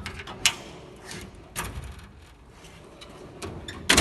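Steel tool chest drawers being worked on ball-bearing slides. There is a sharp click about half a second in, short sliding rumbles, and a few light clicks near the end.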